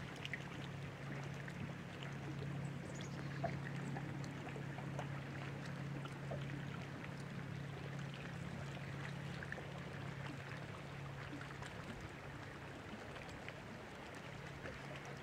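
Water lapping and trickling against the hull of a bass boat over a steady low hum, with a few faint scattered clicks.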